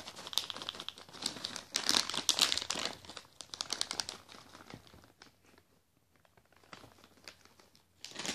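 A crinkly plastic pouch of Temptations cat treats being shaken, crackling in several bursts over the first four seconds or so and then only faintly rustling.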